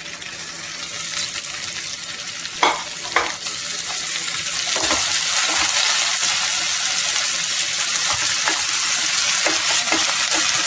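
Chopped tomato, onion and green peas sizzling in hot oil in a frying pan while they are stirred with a spatula. Two sharp knocks come about three seconds in, then the sizzle grows louder and steadier, with light scraping from the stirring.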